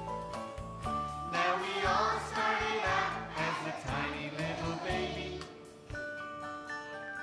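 A group of young children singing in unison along to an instrumental accompaniment with bass. The voices drop out about five and a half seconds in, leaving only higher instrumental notes.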